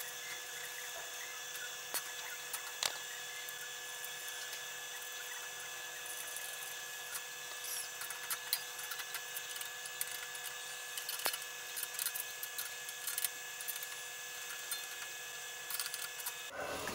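A steady high-pitched machine whine holding several fixed pitches, with scattered light metallic clicks and taps of parts being handled; the whine cuts off just before the end.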